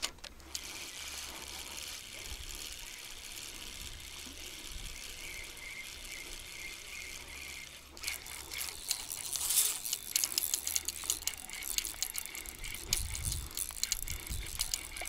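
Spinning reel being cranked to retrieve line, first as a steady whirr, then from about eight seconds in as a run of irregular clicks and rattles while the rod bends under a hooked fish.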